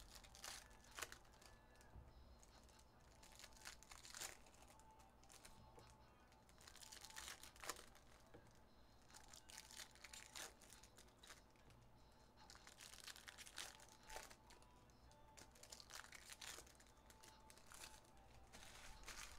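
Faint crinkling and tearing of foil trading-card pack wrappers being ripped open and handled, in several short bouts, over faint background music.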